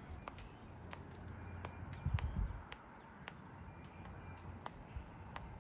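Cockatoos and king parrots cracking and husking seed with their beaks: a run of sharp, irregular clicks, with a few faint bird chirps and squeaks toward the end.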